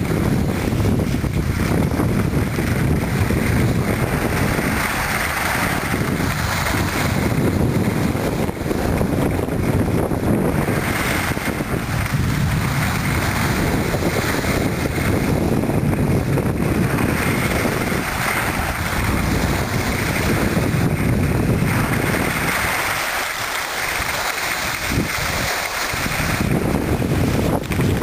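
Wind rushing over the microphone of a skier going downhill, mixed with the steady hiss of skis sliding over snow. The low rumble eases for a few seconds near the end.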